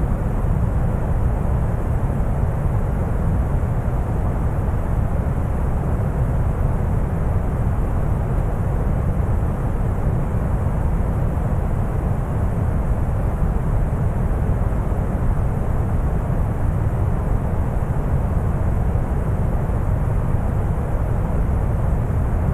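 Synthetic deep brown noise: a steady, even rumble with most of its weight in the low end and little hiss above, unchanging throughout.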